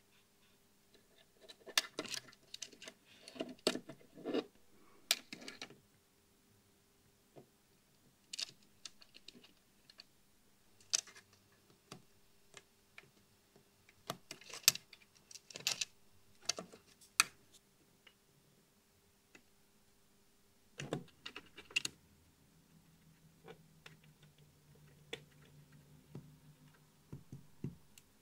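Metal hand tools (pliers and tweezers) clicking and tapping against turret lugs, component leads and the board while resistors are fitted onto a tube amp turret board: irregular clusters of sharp clicks separated by short pauses.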